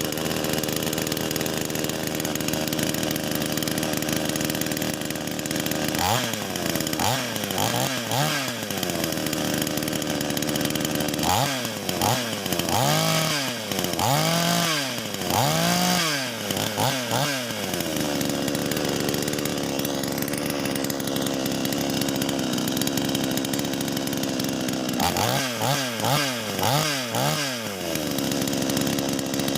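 Sumura two-stroke chainsaw, just started cold, idling and revved in quick throttle blips: a short series about six seconds in, a longer one around the middle, and another near the end, settling back to idle between them.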